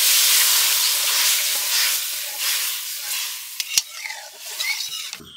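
Watery ground mustard paste added to hot oil and fried tomatoes in a cooking pan, sizzling loudly. The sizzle dies down over the next few seconds and stops near the end, with a single click of a utensil about four seconds in.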